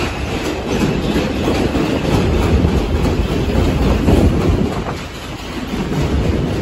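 R142 New York subway train running along an elevated steel structure: a steady low rumble of steel wheels on rail with irregular clatter over the rail joints, easing briefly about five seconds in.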